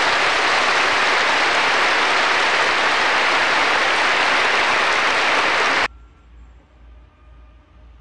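Audience applauding steadily, cutting off abruptly about six seconds in, after which only a faint low hum remains.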